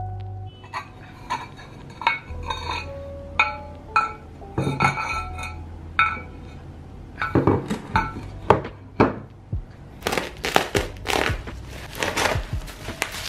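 Speckled stoneware plates clinking and ringing against each other as they are handled and set down. From about ten seconds in, bubble wrap crinkles as it is handled.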